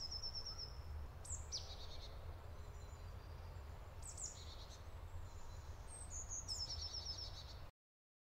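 Songbirds singing in a forest: short, high, trilled phrases that repeat every couple of seconds, over a faint low rumble. The sound cuts off to silence near the end.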